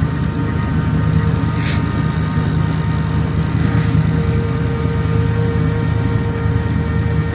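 Jet boat's engine running steadily with an even low hum, and a brief click about a second and a half in.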